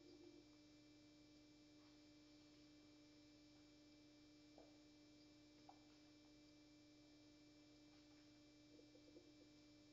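Near silence: a faint steady hum, with a few faint ticks.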